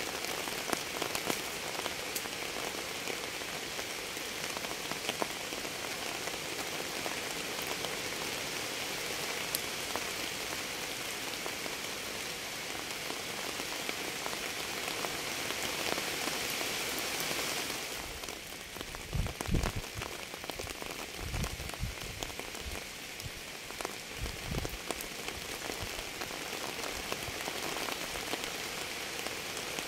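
Steady rain falling on a surface, an even hiss with many close drops ticking. About two-thirds of the way through the hiss thins and a few low thuds come in.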